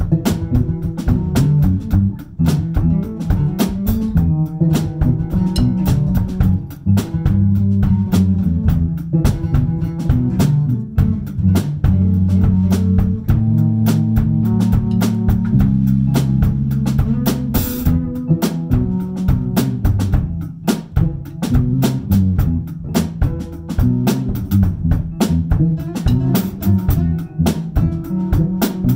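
Live band playing an improvised instrumental jam: a drum kit keeping a busy steady groove over electric bass and guitar.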